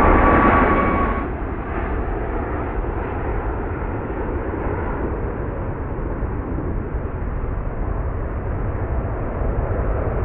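Boeing 747-8 freighter's four GEnx jet engines at takeoff thrust: a loud roar with a high whine that drops away about a second in, leaving a steady low rumble.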